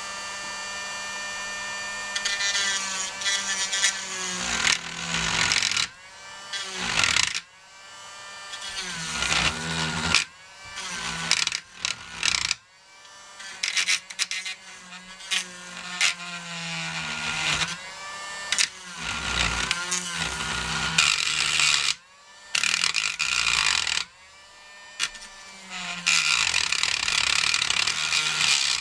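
Dremel rotary tool with a small shaping bit cutting through flexible magnetic sign material. Its high motor whine sags in pitch as the bit bites in and rises again as it frees up, again and again, in spurts broken by several brief pauses.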